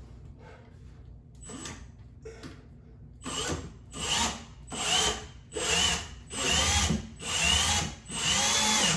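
Power drill run in about six short bursts, starting about three seconds in, its motor whine rising in pitch in each burst; the last burst is the longest. It is drilling into the wall in search of a stud.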